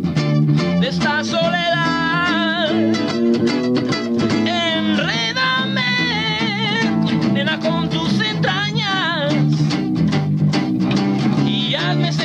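A man singing live, with vibrato on held notes, over a strummed acoustic guitar, accompanied by a second guitar.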